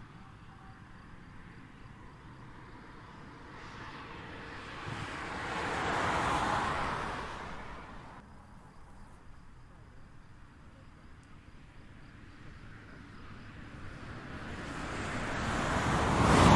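Highway traffic: vehicles passing one at a time over a steady low road rumble. One swells and fades about six seconds in, and a second, louder pass builds toward the end.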